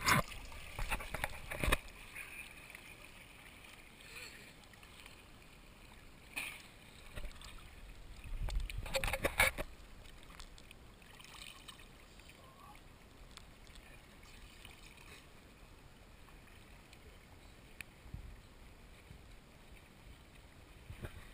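Water splashing and sloshing against an action camera's waterproof housing as it bobs at the surface, in bursts near the start, around six to seven seconds in, and a longer one from about eight to nine and a half seconds in. In between there is only a faint, steady wash of water noise.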